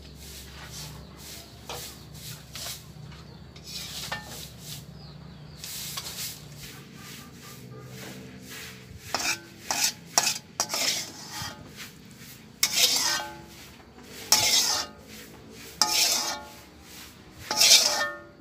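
Metal spatula scraping and clinking in a wok as fried food is scooped out into a bowl: quiet at first, then a run of about seven loud, ringing scrapes in the second half.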